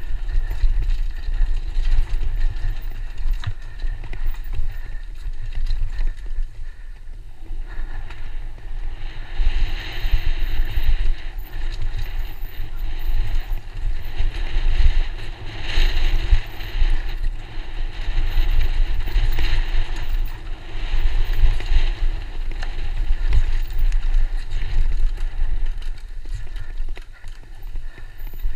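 Downhill mountain bike descending a rough dirt trail, heard from a camera on the rider: a constant low rumble of wind and jolting on the microphone, frequent rattles and knocks from the bike over bumps, and a hiss of tyres on dirt that grows louder after about nine seconds.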